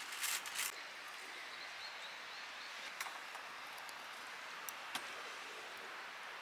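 Metal spoon clicking and scraping against a plate while eating, a few short sharp clicks spread through, with a cluster near the start. Under it runs a steady outdoor hiss with faint high bird chirps about two seconds in.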